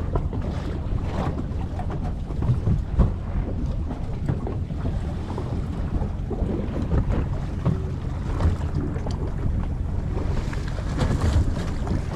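A fishing boat at sea with a steady low engine drone. Wind buffets the microphone in uneven gusts, over a wash of water noise.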